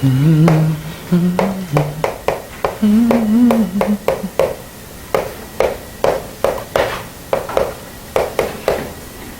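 A voice hums or murmurs a few held notes without words during the first four seconds. Throughout, there is an uneven run of sharp taps and clicks, about three a second.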